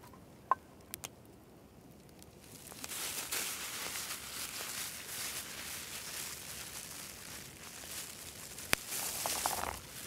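A short metal ping near the start. From about two and a half seconds in, a steady crackling hiss from the steaming camp pot over the campfire, with a sharp click near the end.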